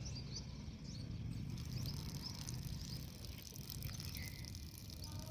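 Faint, scattered bird chirps over a low, steady rumble.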